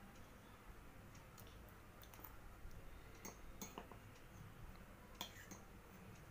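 A few faint, scattered clinks of a metal spoon against a steel bowl over quiet room tone.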